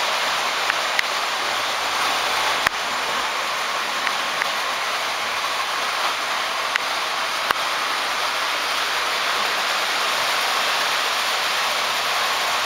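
Several O-gauge electric model trains running at once on three-rail track: a steady rushing hum of wheels and motors, with occasional light clicks.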